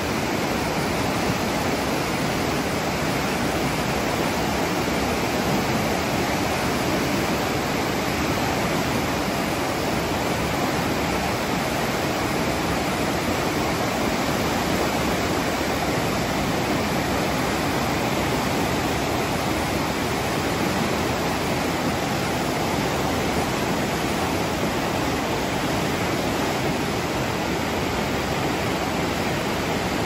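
The Alaknanda, a Himalayan mountain river in flood after a night of heavy rain, its silt-laden rapids rushing in a loud, steady roar.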